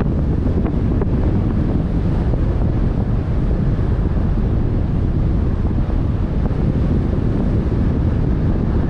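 Wind buffeting the microphone on the open deck of a boat under way, a steady low rumble with the rush of water and the boat underneath.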